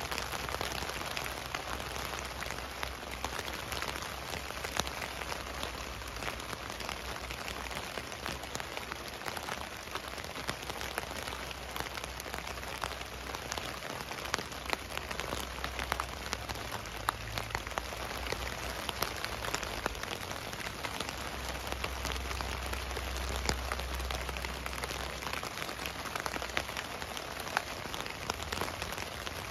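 Steady rain falling on a tent, heard from inside: a continuous patter with many single drops tapping out sharply above it. A low rumble comes and goes underneath.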